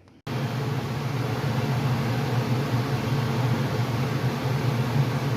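Heavy rain: a loud, steady noise with a low rumble underneath, starting abruptly just after the start.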